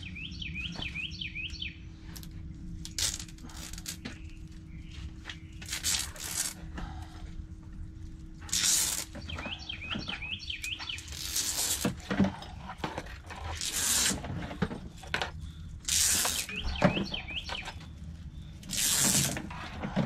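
A songbird sings the same short warbling phrase three times, near the start, about halfway and near the end. Between the phrases come irregular rustling and scraping bursts of electrical wire being handled and sorted for stripping.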